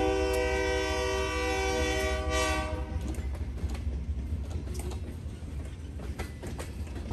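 Diesel freight locomotive's air horn held on a chord and cutting off about three seconds in. Then loaded freight cars roll past with a low rumble and wheel clicks and clatter, slowly fading.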